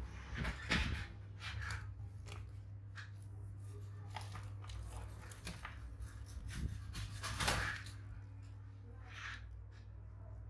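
Hands handling small parts and materials on a workbench: scattered rustling and scraping, with two louder scrapes about a second in and near 7.5 seconds, over a steady low electrical hum.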